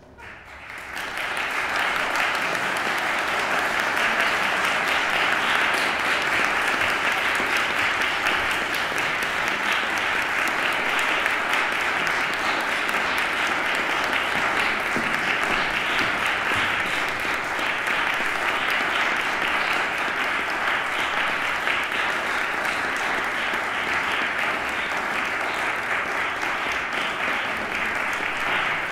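Audience applauding, the clapping swelling within the first second or two and then holding steady.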